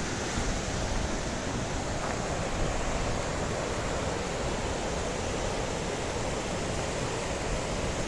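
Steady, even rush of a waterfall, with no breaks or changes.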